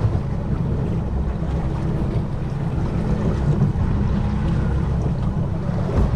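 Trolling boat's engine running steadily, a constant low hum, with wind noise on the microphone and water against the hull.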